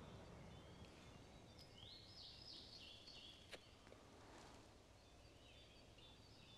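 Near silence: faint outdoor ambience, with a short run of faint bird chirps about two seconds in and a single soft click a little later.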